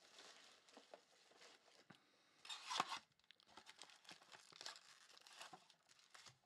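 Faint tearing and crinkling as a cardboard Panini Mosaic trading-card box is opened and its foil-wrapped packs are handled, with one louder rip about two and a half seconds in.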